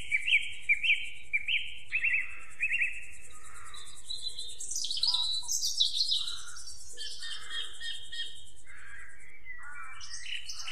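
Wild birds chirping and calling. A quick run of short repeated chirps comes first, then a mix of varied calls from more than one bird.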